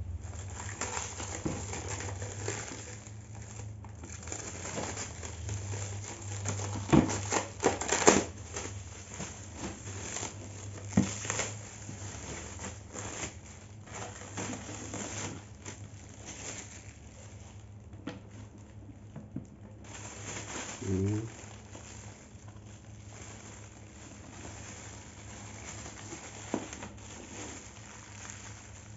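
Clear plastic stretch wrap crinkling and tearing as it is pulled off an air fryer by hand, with a run of sharp crackles, loudest about seven to eight seconds in and again around eleven seconds.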